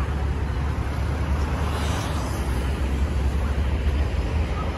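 Steady road-traffic noise, a continuous low rumble with no single vehicle standing out.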